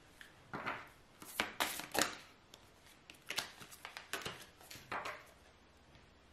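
Cards being handled on a table: a series of short rustles and light slaps in several bunches, as a reading deck is shuffled and cards are laid out.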